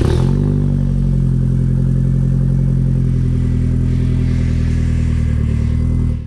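Toyota Celica Alltrac (ST165) 3S-GTE turbocharged four-cylinder engine running at a steady idle, just caught on a cold start. It cuts off suddenly at the end.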